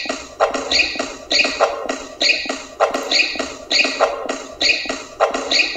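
Music with a steady, evenly repeating beat, about one beat every 0.6 seconds, with the same short high figure repeating over it.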